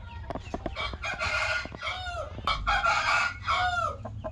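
Rooster crowing twice, each crow harsh and hoarse and ending in a curving note, the first about a second in and the second near three seconds.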